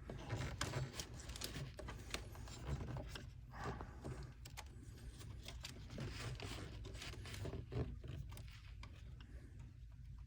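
Faint handling sounds of plastic zip ties being fed and pulled tight around hoses and wires: scattered clicks, ratcheting and scrapes.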